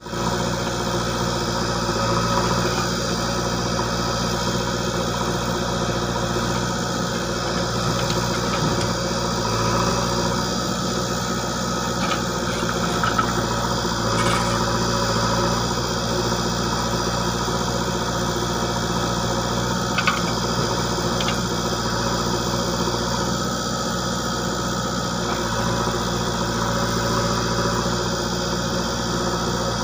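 Heavy diesel engine idling steadily, with a few brief clicks and knocks around the middle.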